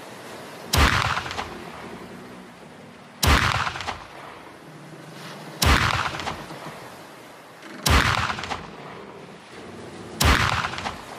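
Revolving flintlock pistol firing five shots, one about every two and a half seconds, each a sharp report that trails off over about a second.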